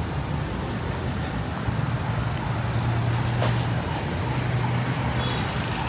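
A vehicle engine idling with a steady low hum that swells a little twice, over street traffic noise.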